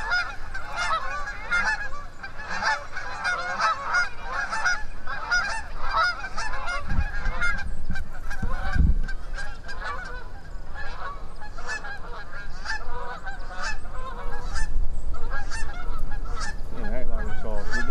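A flock of geese honking, many calls overlapping without a break.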